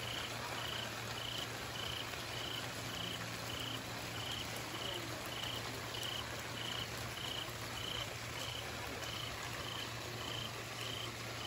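Heavy storm rain and wind making a steady hiss. Through it, a high chirping call repeats evenly about twice a second.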